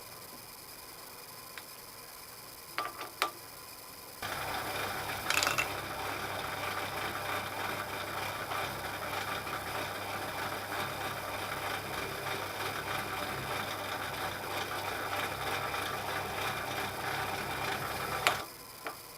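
A couple of clicks, then a horizontal milling machine's geared spindle starts about four seconds in and runs with a steady gear whir while drilling a hole in an aluminium part, stopping abruptly near the end.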